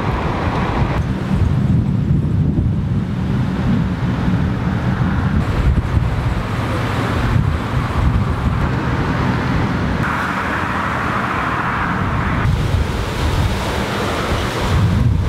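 Gusty wind of about 29 mph battering the microphone: a loud, steady low rumble of wind noise that changes abruptly several times.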